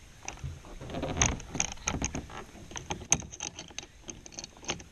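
Hands fitting a kayak lifter's plastic adapter and knob onto a roof-rack crossbar: an irregular run of small plastic and metal clicks, knocks and rubbing, with a sharper click about three seconds in.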